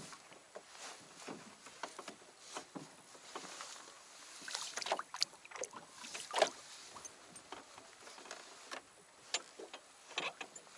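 Scattered small knocks and clicks of gear being handled in a small hand-rowed fishing boat, with a few sharper knocks about five and six and a half seconds in and again near the end.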